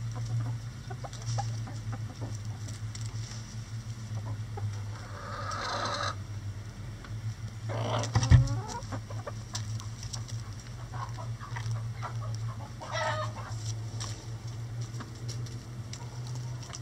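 Backyard chickens clucking as they peck at a hanging cabbage ball, with light pecking taps throughout. Louder squawking calls come about five, eight and thirteen seconds in; the one about eight seconds in is the loudest and comes with a knock.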